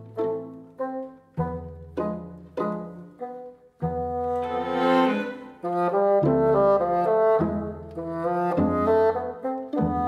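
Instrumental background music: a tune of short notes that strike and fade, over a low bass line that changes about once a second.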